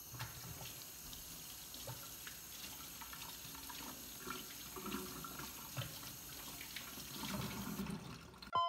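Kitchen tap running faintly into a stainless steel sink while hands are rubbed and rinsed under the stream, with small irregular splashes.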